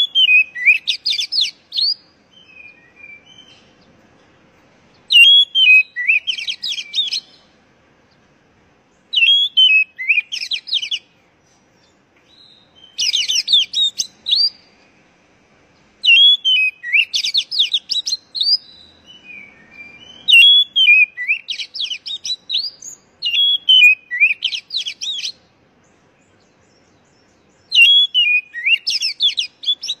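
Oriental magpie-robin singing: about eight short, loud phrases of rapid, varied high notes, each a second or two long, separated by pauses of a second or more.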